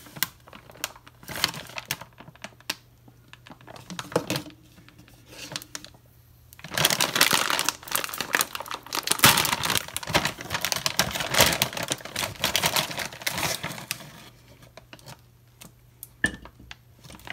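Plastic meatball bag crinkling and rustling as it is handled and opened, in bursts, with a few sharp knocks near the end as the hard meatballs are dropped into the crock pot.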